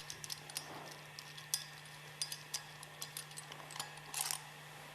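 Light metallic clicks and clinks of hex head screws and wing nuts being unscrewed and handled on a separator's steel bowl bottom, with a short louder rattle about four seconds in. A faint steady low hum runs underneath.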